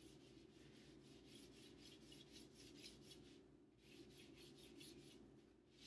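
Faint, quick back-and-forth scrubbing of a wet paintbrush over paper, with a short pause a little past halfway.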